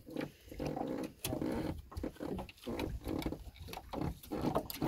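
An animal making repeated short, rough sounds, a few a second.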